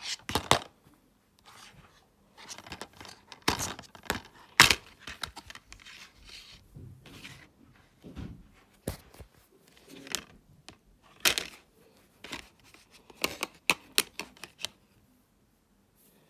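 Plastic DVD keep case being opened and handled: a run of sharp clicks and snaps from the case and its disc hub, with plastic rustling between them.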